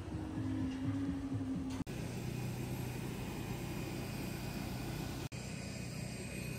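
Steady engine hum and noise of a vehicle, changing abruptly twice as short clips cut into one another.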